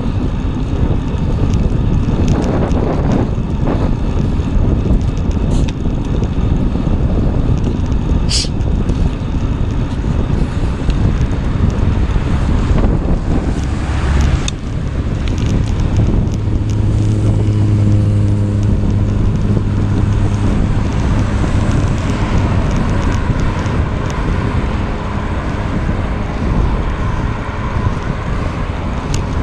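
Wind rushing over the microphone of a camera moving along a roadside cycle path, with car traffic passing on the road alongside. A brief high squeak comes about eight seconds in, and a steady low hum rises and holds through the middle.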